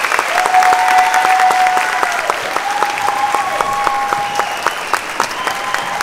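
Large audience applauding, dense steady clapping, with several long held tones sounding over it.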